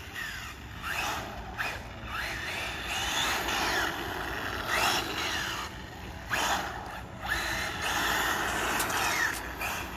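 Radio-controlled cars driving hard, their motors whining and swooping up and down in pitch over and over as they speed up and slow down, with a steady hiss of tyres and spray underneath.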